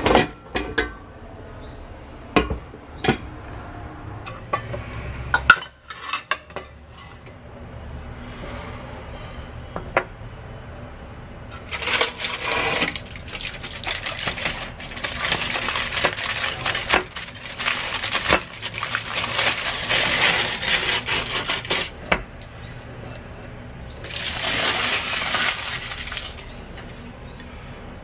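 A few sharp clicks and knocks as an air fryer basket is pulled out and handled. Then aluminium foil crinkles over a glass plate for about ten seconds, with light clinks against the plate, and crinkles again briefly near the end.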